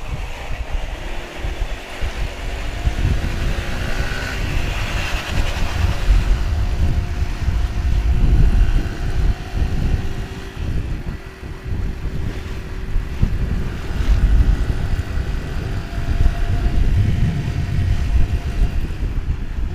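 Motorcycle riding with wind buffeting the helmet microphone over the engine, the engine note rising a few seconds in.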